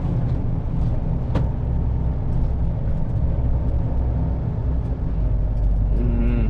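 HGV lorry engine running steadily, heard from inside the cab, with a single sharp click about a second and a half in. A brief voice sound comes near the end.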